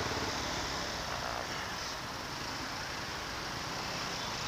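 Motorcycle being ridden slowly through dense traffic: a steady mix of low engine hum with road and wind noise.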